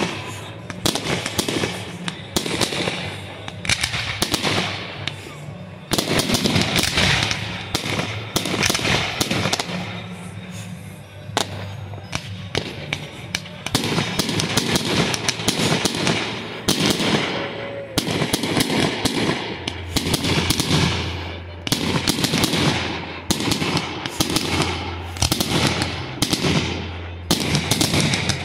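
Aerial fireworks going off in rapid succession: many sharp bangs and crackles, overlapping one another, with a short quieter stretch about ten seconds in.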